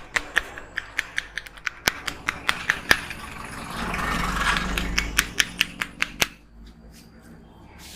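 A barber's hands striking a client's head in a rapid percussive massage, sharp slaps about five a second. For a couple of seconds midway they give way to a louder rushing noise; then the slaps come back and stop about six seconds in.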